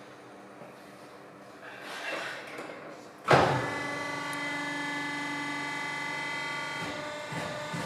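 Light handling clatter, then the electric drive of a Corghi AGT Tilt Car Mate tyre changer starts with a sudden jolt about three seconds in and runs steadily with a whine, turning the clamped car wheel.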